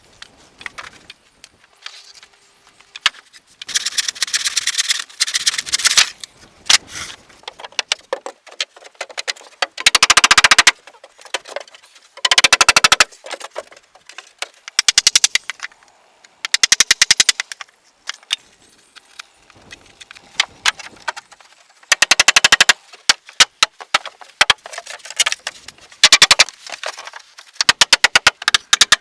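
Bursts of rapid, sharp knocks, many a second, each burst lasting about a second and coming again every few seconds.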